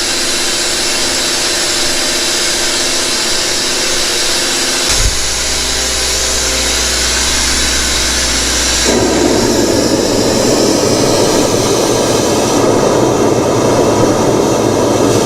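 A fairground PA sound system playing loud and hissy, heavy in the treble at first; a steady deep bass comes in about five seconds in and a loud middle rumble joins about four seconds later.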